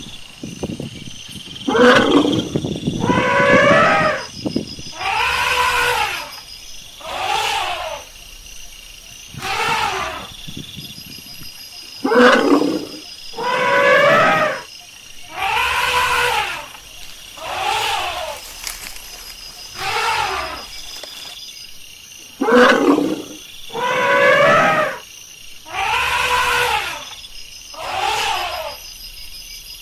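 Elephant calling over and over: about fourteen loud calls roughly every two seconds, each rising and then falling in pitch.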